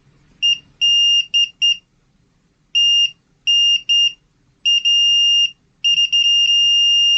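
Multimeter continuity beeper: a high, single-pitched beep sounding in short, irregular stretches as the probes make and break contact, then holding steady for the last second or so. The steady tone signals continuity, a good connection.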